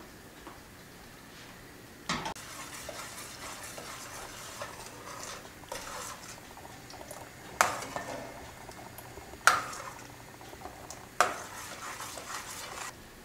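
A metal spoon stirring and scraping around inside a stainless steel saucepan of liquid. Sharp clinks of the spoon against the pan come at the start of the stirring and three more times, louder, in the second half.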